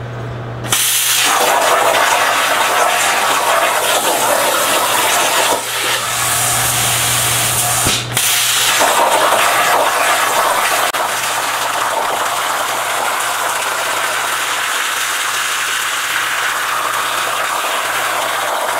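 CNC plasma torch cutting steel plate: a loud, steady rushing hiss of the arc and cutting air that starts sharply about a second in, dipping briefly twice, about five and a half and eight seconds in.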